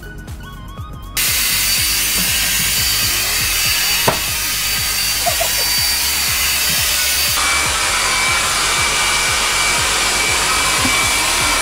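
Handheld hair dryer blowing steadily, switched on about a second in, with a single click about four seconds in. Its rushing sound brightens and a thin whine joins about seven seconds in.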